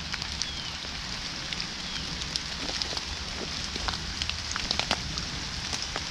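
Steady rain falling, an even hiss with many scattered sharp ticks of drops landing close by.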